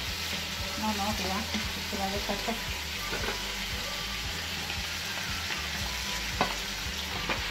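Hot oil sizzling steadily in a frying pan as sliced garlic and pieces of meat fry. Near the end there are two sharp knocks as a wooden spoon stirs against the pan.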